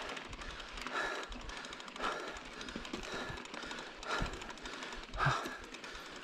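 A person breathing hard in a steady rhythm, about one breath a second.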